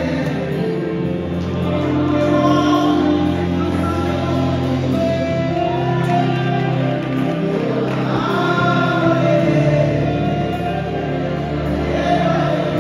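Live gospel worship music: a woman sings the lead into a microphone, with backing singers and keyboard accompaniment.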